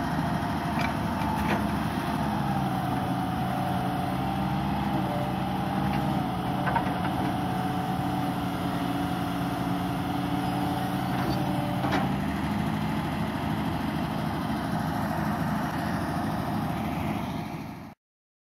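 Hitachi EX200 long-reach excavator's diesel engine running steadily as the machine works, with a wavering whine over it until about two-thirds of the way through and a few sharp knocks. The sound cuts off suddenly near the end.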